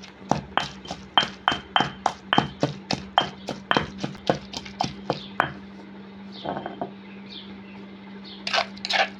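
Rhythmic knocking of a utensil in a bowl of walnut chutney, about four strokes a second, each with a short ringing tone. The strokes stop about five and a half seconds in, and a few more knocks come near the end.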